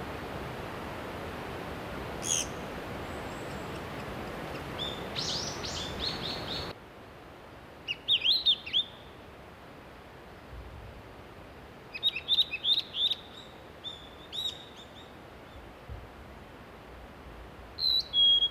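Small birds chirping: quick runs of short, sharp high notes, coming several times over a steady hiss that drops away suddenly about seven seconds in.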